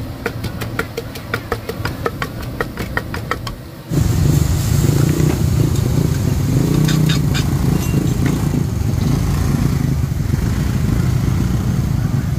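Quick, even metal tapping, about five taps a second, at the wok stall. About four seconds in, a steady low rush starts suddenly and keeps going, from the high-heat gas burner under the wok as the clams are stir-fried. A few more spatula clatters come about three seconds later.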